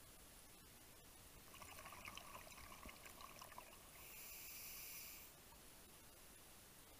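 Scuba regulator breathing heard underwater: a bubbling exhalation for about two seconds, then a short hissing inhalation.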